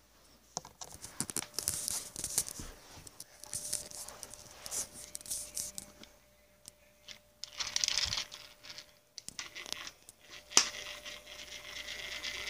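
Irregular scratchy rustling and scraping close to the microphone on carpet, with a sharp knock about ten seconds in, followed by a steady hissing buzz near the end.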